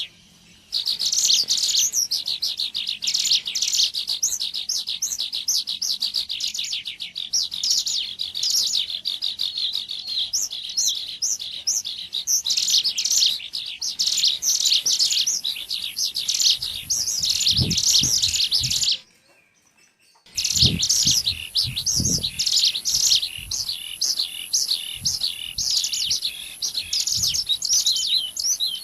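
Ciblek gunung (a mountain prinia) calls on a bird-lure recording: fast, continuous runs of high chirping notes. The calls break off into a short silence about two-thirds of the way through, then resume.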